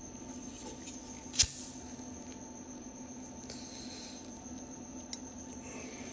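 A lighter is struck once, a sharp click about a second and a half in, followed near four seconds by a brief faint hiss as the flame burns. Under it runs a steady high-pitched whine and a low hum, with another small click near the end.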